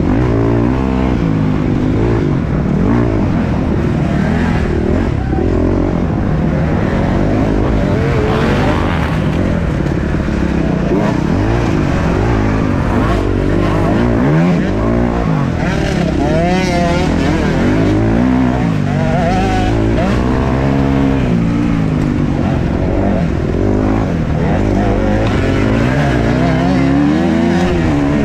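A 250cc off-road motorcycle's engine running and revving under racing throttle, its pitch rising and falling every second or two with throttle and gear changes.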